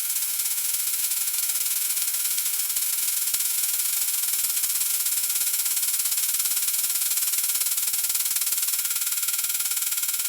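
Freezing rain ticking against window glass: a dense, steady hiss of countless tiny ticks, mostly high-pitched.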